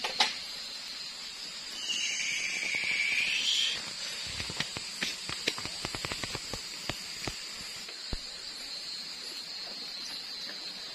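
Charcoal fire under a whole chicken grilling in a wire basket: a hiss lasting under two seconds, then a scattered run of sharp crackles and pops as juices and fat drip onto the hot coals.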